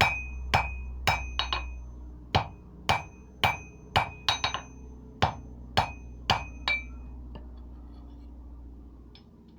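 Hand hammer striking steel, each blow ringing like metal on metal, about two blows a second with a quick flurry in the middle. The hammering stops about seven seconds in.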